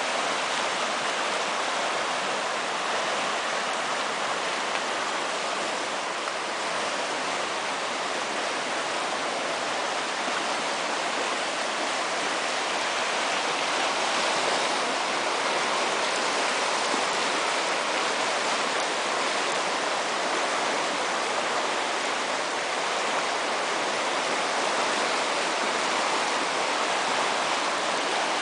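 Flooded creek at very high water rushing under a bridge: a steady, unbroken roar of fast-moving water.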